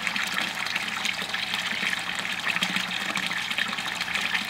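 Water steadily splashing and trickling into a tilapia tank, the flow that keeps the water oxygenated, with small splashes from the tilapia feeding at the surface.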